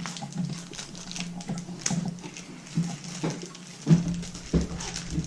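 A small cardboard mystery pin box being opened and its packaging handled: scattered rustles and clicks, with a louder thump about four seconds in.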